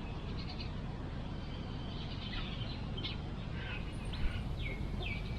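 Outdoor ambience: a steady low rumble under short high-pitched animal calls, several of them falling in pitch in the second half, and one sharp tap about four seconds in.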